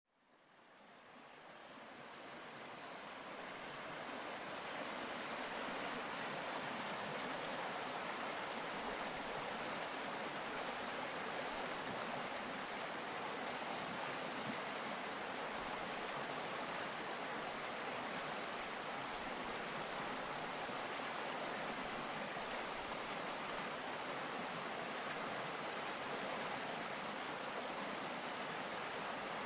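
Shallow mountain creek running over rounded stones: a steady rush of flowing water that fades in over the first few seconds and then holds even.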